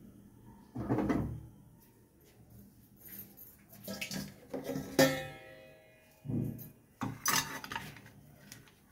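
Metal clanks and knocks of a pressure cooker and its lid being handled on a gas stove: several separate strikes, the loudest a ringing metal clank about five seconds in.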